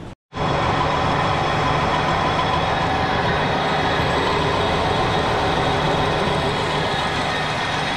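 Metal lathe running, its chuck spinning a steel workpiece with a bar tool in its bore: a steady machine noise with several steady tones, starting abruptly a fraction of a second in.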